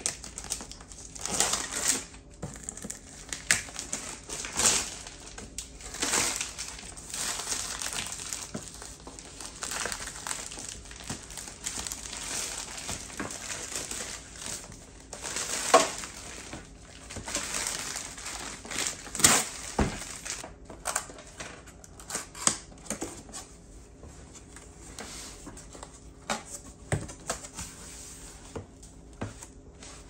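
Clear plastic shrink-wrap crinkling and tearing as it is peeled off a cardboard appliance box, then cardboard flaps flexing and rubbing as the box is opened. Irregular crackles and rustles, with a few sharper snaps.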